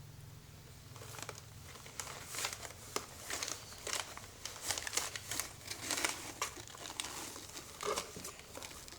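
A cat playing in a box, making a string of irregular crinkling rustles that start about a second in.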